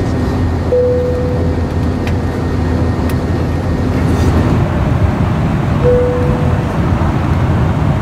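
Two single seatbelt-sign chimes in an airliner cabin, about five seconds apart, each one clear tone fading over about a second: the first from an Airbus A321, the second from a Boeing 777. A steady low rumble of cabin noise runs underneath.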